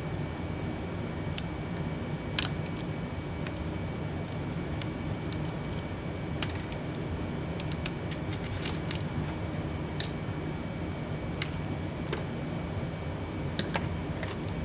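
Scattered light clicks and taps of small tools and parts being handled on a laptop during disassembly, over a steady background hum and hiss with a faint high whine.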